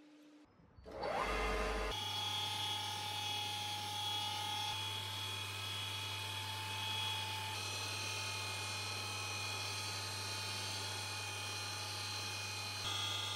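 Restored three-phase lathe motor starting up: its whine rises over about a second, then it runs steadily with an electrical hum and a high whine.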